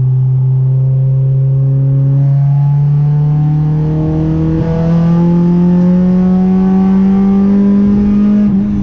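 Honda car engine pulling under acceleration, its note rising steadily and smoothly for several seconds through one gear.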